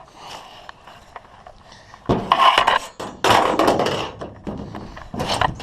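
Cut wooden deck board being worked into a jon boat for a test fit: two longer stretches of scraping and knocking about two and three seconds in, and a shorter one near the end.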